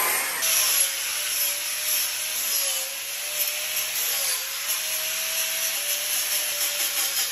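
Handheld angle grinder with a sanding disc working a wooden carving: a steady hissing rasp of abrasive on wood over a thin motor whine whose pitch wavers, dipping briefly about four seconds in.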